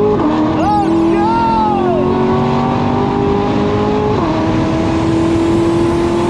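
Twin-turbocharged C8 Corvette V8 accelerating hard, heard from inside the cabin: the engine note climbs slowly through each gear and drops at upshifts right at the start and about four seconds in.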